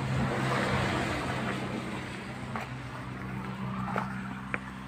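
A motor running with a steady low hum, its hiss growing quieter over the first few seconds, with a few faint clicks near the end.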